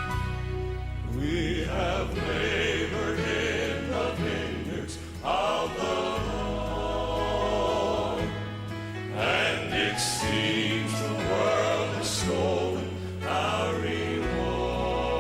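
A gospel song playing: sung vocals with a wavering vibrato over a steady low instrumental backing.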